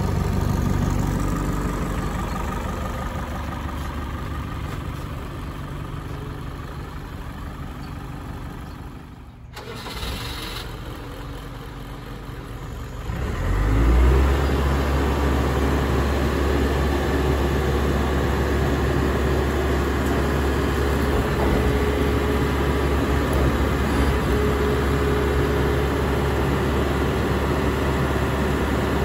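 Terex TA9 dumper's diesel engine running. About halfway through, its note jumps up sharply and then holds loud and steady while the hydraulics tip the skip forward, with a steady hum over the engine drone.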